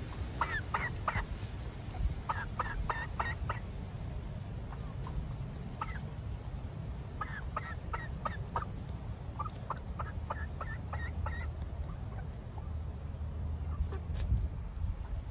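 Hens clucking in short runs of quick notes, several runs coming one after another.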